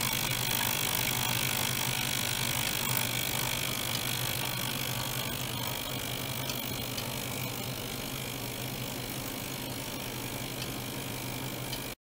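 Small ultrasonic cleaner bath running together with a small water-circulation pump: a steady hum with a hiss and a faint high whine over it, easing off slightly in level.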